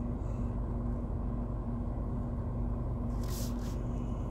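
Steady low rumble inside a car cabin with a faint steady hum, and a brief soft hiss about three seconds in.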